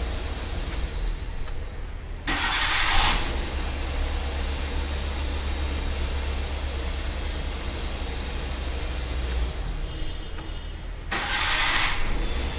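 A Maruti Suzuki WagonR engine started twice with its new starter motor, each a short, loud crank of under a second about nine seconds apart, the engine catching at once and idling in between. The quick, clean starts show the replacement starter working, after the old one failed with water inside it.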